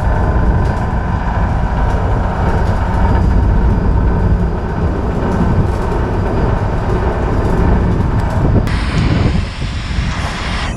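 Wind buffeting the microphone over the rush of sea water along a moving ship's hull, a steady low rumble. Near the end a brighter hiss of spray comes in.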